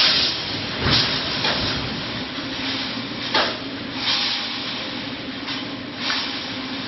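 Reinforcing mesh welding machine running: its row of pneumatic welding heads cycles with sharp rushes of air-like noise every second or so, over a steady low machine hum.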